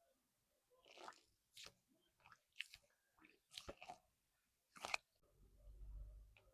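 Dried hairspray coating on a squeezed stress-ball fidget cracking: a scattered series of sharp, crunchy crackles, followed near the end by a low rumble.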